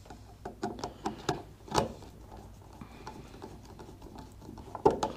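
Light, irregular clicks and scrapes of a screwdriver and wires being worked at a push-button contact block while reconnecting it, with a sharper click near the end.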